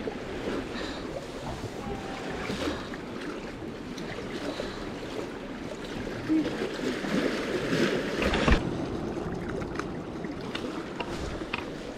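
Sea water sloshing and lapping among concrete tetrapods as a steady wash, with a single knock about eight and a half seconds in and a few light clicks near the end.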